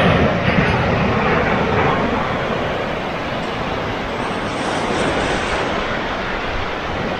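Strong wind buffeting the microphone over ocean surf on a rocky shore: a steady rushing with a low rumble that swells and eases.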